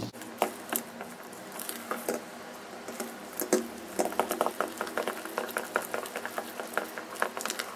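Hand squishing and slapping thick ground urad dal batter in a steel bowl, a quick irregular run of wet squelches and small smacks as the spiced medu vada batter is mixed by hand.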